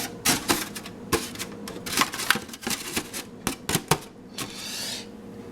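Irregular clicks and light knocks of hard parts being handled and fitted together, with a brief scraping rub near the end.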